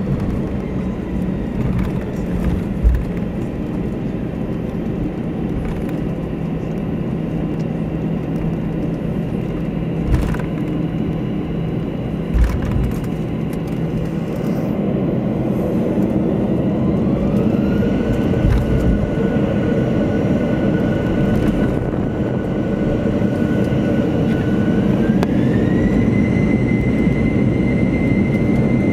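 Airbus A321's jet engines heard from inside the cabin, spooling up for the takeoff run: the engine noise grows louder, and a fan whine rises in pitch about halfway through, holds, then climbs again near the end. A few dull thumps come in the first half.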